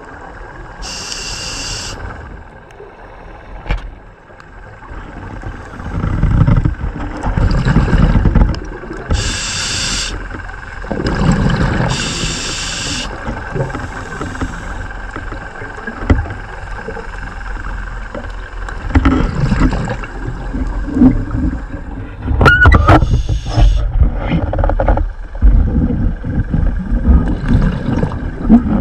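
Scuba regulator breathing heard underwater: short hissing inhalations through the demand valve, three of them, alternating with longer low surges of exhaled bubbles.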